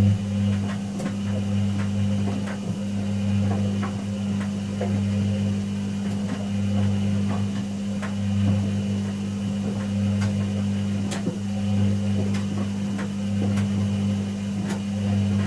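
Whirlpool AWG023 H-Axis top-loading washing machine running late in its cycle, with a loud steady low hum and scattered light clicks. The hum starts abruptly.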